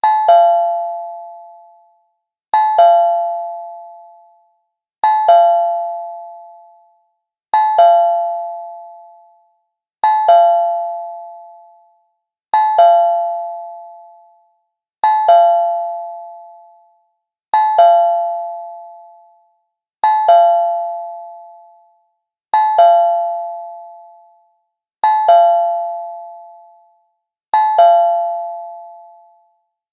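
Cartoon doorbell sound effect ringing over and over, twelve times, about every two and a half seconds. Each ring is a quick two-note chime that rings out and fades over about two seconds.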